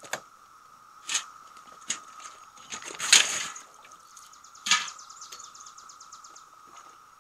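Galvanized metal poultry waterers and a metal bucket knocking and clanking as they are handled, a handful of separate knocks, the loudest a scraping clatter about three seconds in. A quick run of light ticks follows near the end.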